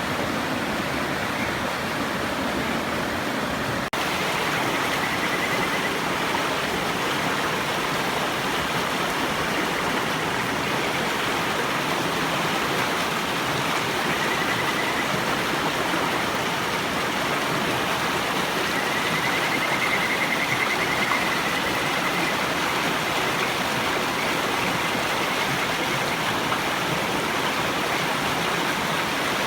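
River water flowing steadily, with faint high, wavering trills of Kajika frogs (Buergeria buergeri) rising over it a few times.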